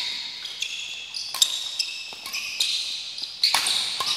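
Badminton rally: sharp racket-on-shuttlecock hits about once a second, with court shoes squeaking on the floor in short high chirps between them.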